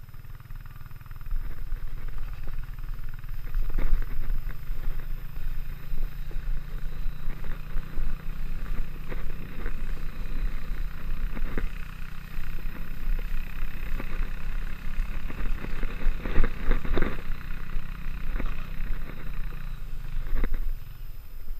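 A snowboard towed behind an ATV sliding over packed snow: a steady low rumble from the board on the snow and the ATV's engine ahead, broken by frequent knocks and scrapes as the board jolts over bumps.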